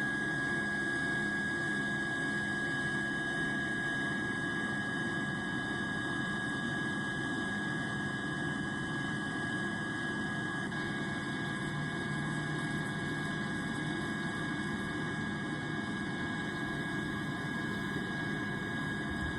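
Airplane engine drone: a steady, unbroken rush of noise with a constant high tone running through it.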